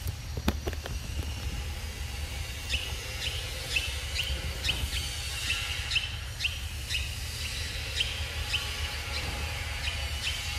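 A bird repeating a short, falling chirp about twice a second, starting about three seconds in, over a steady low rumble of outdoor noise. A few sharp clicks in the first second.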